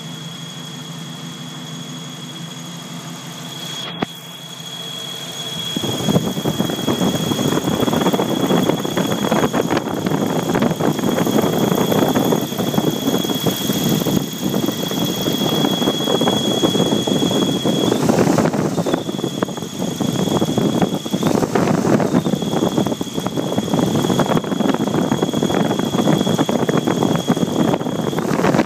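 Jeep Wrangler YJ's 4.0 L straight-six engine running, idling at first and then louder and rougher from about six seconds in. Over it a steady high-pitched squeal holds one pitch, drops out twice briefly near the end and stops just before the end. This is the noise the owner is recording.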